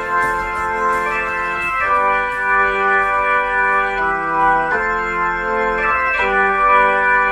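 Background music of held organ-like keyboard chords, changing every second or two.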